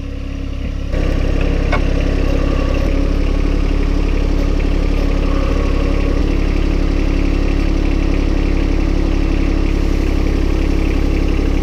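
John Deere compact tractor's diesel engine running steadily, loud and close. It gets louder about a second in and then holds steady.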